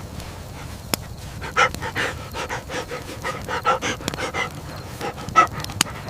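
A dog panting in quick, rhythmic breaths, with a couple of sharp clicks in the first second.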